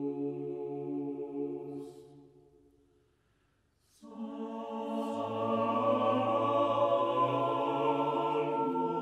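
Background music of slow, sustained chant-like choral chords; it fades out about two seconds in, falls nearly silent, and a new held chord swells in about four seconds in, with a low bass note joining a second later.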